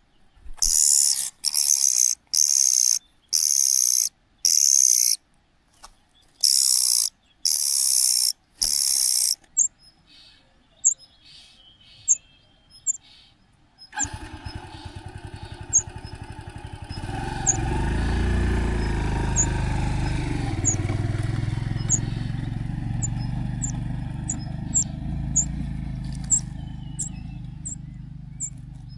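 Young cuckoo giving loud, high, hissing begging calls in a rapid series, about nine in the first ten seconds. Later, short high chirps go on over a steady low rumble.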